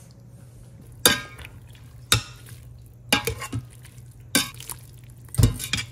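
Metal spoon stirring shredded chicken into the sauce in an Instant Pot's stainless steel inner pot, knocking and scraping against the pot several times at irregular spacing, about a second apart and quicker near the end.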